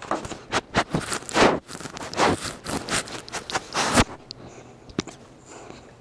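Sounds of a pit bull puppy with hiccups, right at the microphone: a quick, irregular run of short noisy puffs and clicks for about four seconds, then a single click about five seconds in.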